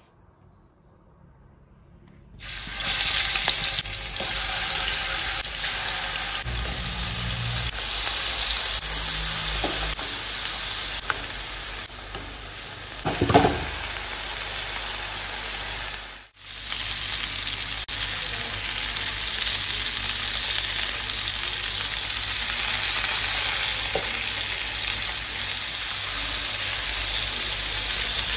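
Marinated chicken pieces sizzling in hot oil in a shallow nonstick pan, the frying hiss starting abruptly about two seconds in and going on steadily. A brief knock comes about halfway, and the sizzle cuts out for a moment a little later before carrying on.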